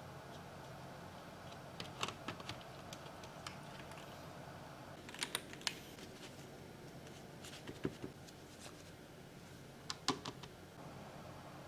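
Darmoshark K8 gasket-mount mechanical keyboard keys pressed in a few scattered small groups of clicks, a couple of seconds apart, over a steady low background hum.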